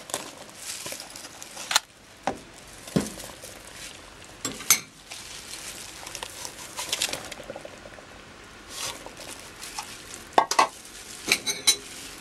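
Sugar poured and scraped from a plastic measuring cup into a metal pot of boiling milk, over a steady hiss, with scattered sharp taps of the cup on the pot. Near the end a metal spoon clinks several times against the pot.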